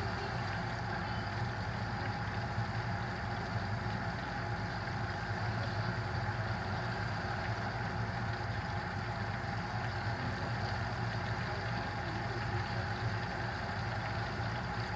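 Outdoor deep fryer running: a steady low rumble with an even hiss of oil frying.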